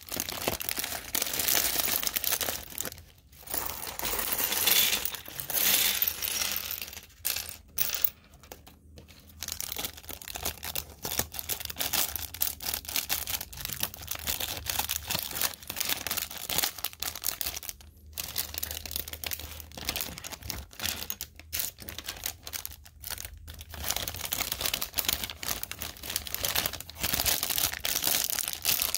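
Small plastic LEGO pieces clattering and clicking as they are handled, with plastic parts bags crinkling.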